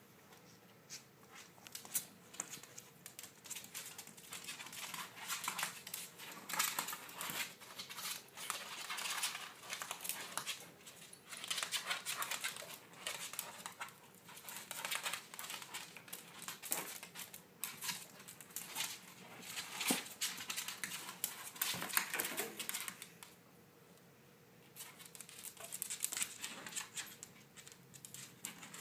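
Claws clicking and scrabbling on a hardwood floor as a small dog and another small pet wrestle in play, in irregular flurries with a short lull about three quarters of the way through.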